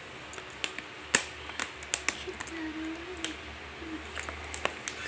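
Eating sounds: about a dozen irregular sharp clicks and taps, the loudest about a second in. A faint short voice-like hum comes near the middle.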